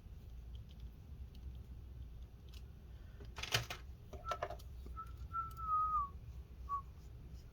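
A short clatter of handling clicks, then a few brief whistled notes, the longest about a second, sliding down at its end, over a low steady hum.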